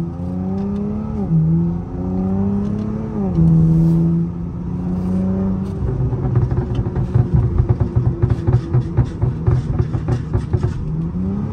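Car engine accelerating through two gear changes, its pitch climbing and then dropping at each shift. It settles into a low, pulsing rumble at low speed and revs up again near the end.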